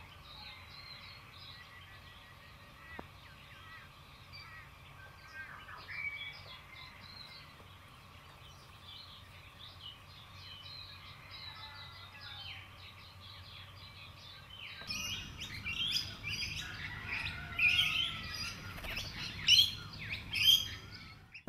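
Faint, scattered bird chirps over quiet forest background. About fifteen seconds in the sound jumps louder into a dense run of sharp, high-pitched chirps and squeals.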